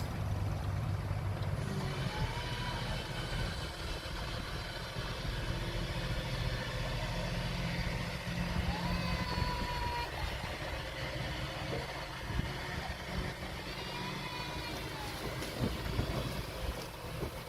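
Diesel engine of a small Komatsu bulldozer running steadily, with a few short high whistling tones that glide up and down over it.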